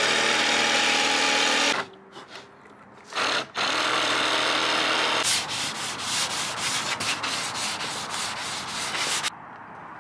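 A Milwaukee jigsaw cutting plywood stops about two seconds in, and a power saw then runs again for a second or two. After that, a sanding sponge is rubbed back and forth along the cut plywood edge in quick repeated strokes for about four seconds.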